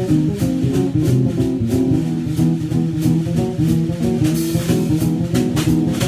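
Instrumental band music from a keyboard, bass and drum kit playing together: sustained keyboard chords and bass notes over steady drum strokes.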